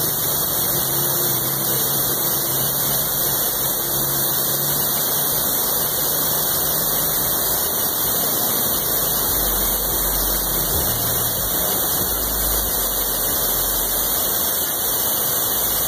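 Water pouring over a low dam (weir) into the stream below, a steady, even rush. A deeper rumble joins in during the second half.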